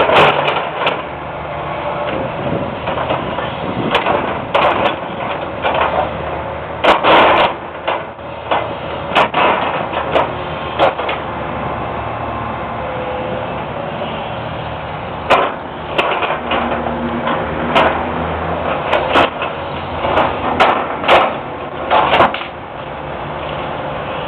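Hitachi EX200 excavator's diesel engine running steadily under many irregular, sharp cracks and snaps of brush and branches breaking as the machine piles them.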